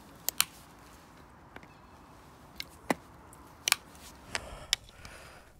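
Roller-ski bindings clicking as ski boots are clipped in and the binding levers are pressed shut by hand: several sharp, short clicks, two close together about a third of a second in, then single and paired clicks around three to five seconds in.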